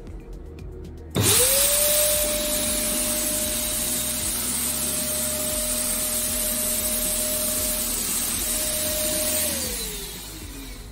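Electric disinfectant fogger (atomizer sprayer) switched on about a second in: its blower motor spins up quickly to a steady whine with a strong rushing hiss of air and mist. Near the end it is switched off and winds down with a falling pitch. Background music plays underneath.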